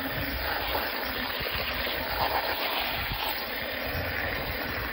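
Garden hose spray nozzle spraying water into a large stainless steel stock pot of turnip greens, a steady hiss and splash as the pot fills to wash the greens.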